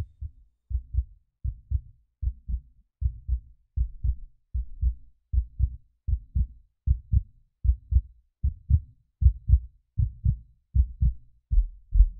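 Heartbeat sound effect: a steady double thump, lub-dub, a little faster than one beat a second, growing slowly louder and stopping suddenly at the end.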